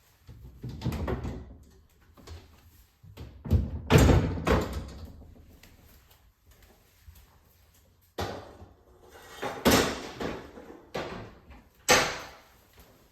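Refrigerator shelves being unhooked, lifted out and handled: a series of separate clunks and knocks, the loudest about four seconds in.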